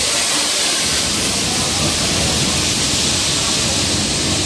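Steam locomotive and its train passing along a station platform: a loud, steady hiss of steam over a low rumble as the carriages roll by.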